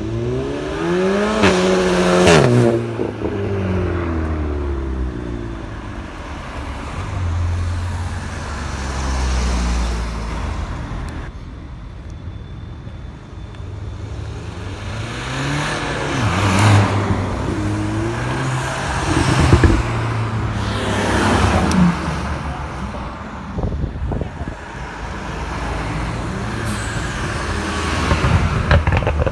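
Cars driving past one after another, their engines revving hard with the pitch climbing and then falling away as each passes. A few sharp pops come about two-thirds of the way through.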